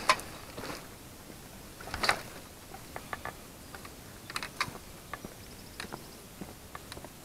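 Scattered light clicks and knocks of a person handling and carrying gear, with a louder knock about two seconds in.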